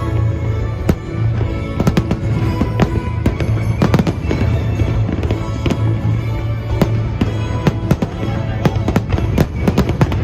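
Aerial fireworks going off in rapid succession, many sharp bangs and crackles close together, over music with a steady low bass.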